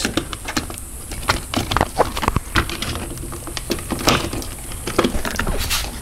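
Wires and plastic connectors being handled and fed through an opening in a car door: scattered light clicks and rustles, irregular throughout.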